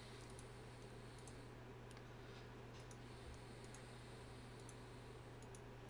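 Near silence with faint, irregularly scattered clicks of a computer mouse, over a low steady electrical hum.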